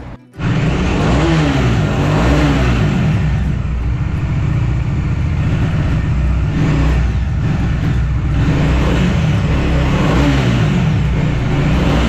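Motorcycle engine running on the move, its pitch rising and falling with the throttle, over a steady rush of wind and road noise. It starts suddenly just after the opening.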